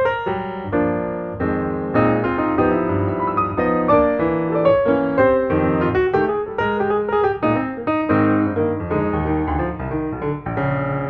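Background piano music, notes and chords played in a continuous flow.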